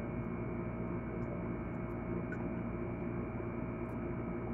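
A steady hum with several held tones, and a few faint clicks.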